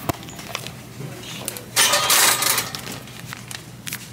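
Shopping cart rattling as it is pushed, with a louder clatter lasting under a second about two seconds in, over a steady low hum.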